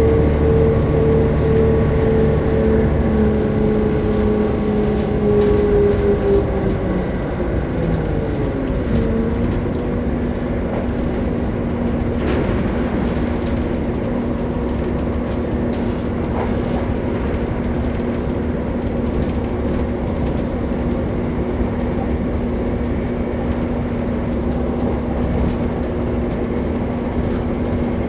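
Running noise of a passenger train heard from inside the carriage: a steady low rumble with an engine hum. The hum's pitch sinks and glides down about eight or nine seconds in, then holds a lower steady note.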